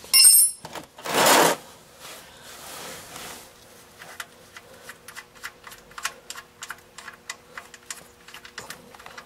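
A wrench clinks with a short metallic ring on a car's oil drain plug, then a loud scraping rustle about a second in. After that comes a run of light, irregular clicks, about three or four a second, as the 14 mm drain plug is worked loose and turned by hand.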